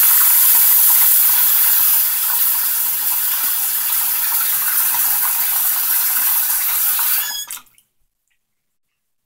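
Bathroom sink faucet running a steady stream of water into an open drain, which takes it freely after a baking soda and vinegar clearing. About seven and a half seconds in, the tap is shut off with a brief squeak of the faucet.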